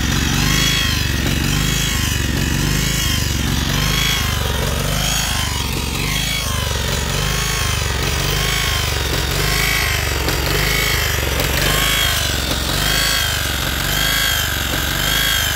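Walk-behind sod cutter's Kohler Command Pro 11 petrol engine running steadily, with a tone that rises and falls in pitch about once a second.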